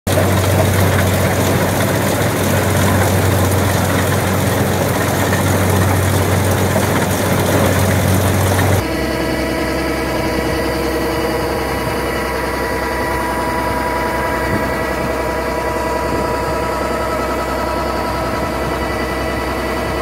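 Kubota SR40 combine harvester running at working speed while cutting rice, a loud steady mechanical din with a strong low hum. About nine seconds in the sound changes abruptly to a slightly quieter, steady hum with several steady tones as the harvester unloads grain through its auger.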